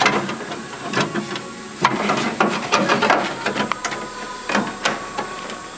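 Irregular knocks and clicks of hand work on metal, with a dense run of them in the middle.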